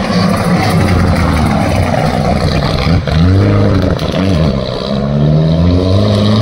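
Mitsubishi Lancer Evolution rally car's turbocharged four-cylinder engine revving hard as it drives past. The pitch dips and comes back twice, about three and four seconds in, with gear changes and lifts, then climbs steadily as it accelerates away.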